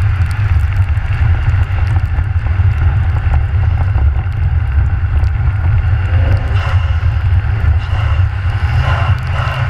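Nissan Juke driving fast on snow-covered ice: a steady, heavy low rumble of tyres, engine and wind, with scattered light ticks.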